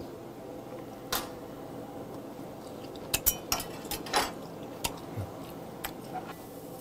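Chewing and mouth sounds while eating grilled beef heart, with a sharp click about a second in and a cluster of clicks between three and five seconds in.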